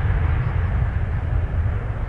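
Boeing 737's twin jet engines at takeoff thrust during the takeoff roll, heard from behind as a steady deep rumble with a rushing hiss, easing slightly as the aircraft pulls away.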